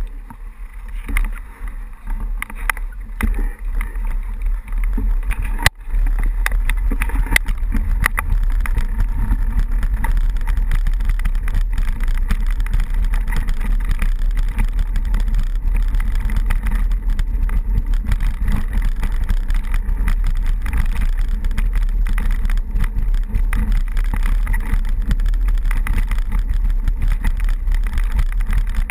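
Mountain bike riding down a rutted dirt road, its rattle mixed with a steady wind rumble on the camera's microphone, which takes over about six seconds in. Before that, lighter clicks and knocks as the bikes get moving.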